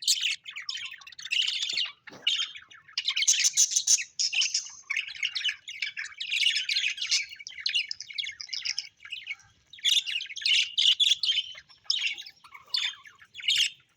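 Small pet Australian parrots chirping and chattering continuously, a dense run of quick high chirps and short squawks with brief lulls about two seconds in and again near the middle.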